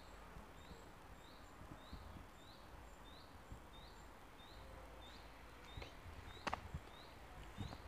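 A woodland bird repeating a short chirp about twice a second, with faint footsteps on leaf litter and a sharp click about six and a half seconds in.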